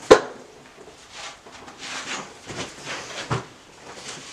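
A sharp knock right at the start, then a run of soft paper rustles as the pages of a printed instruction booklet are handled and turned.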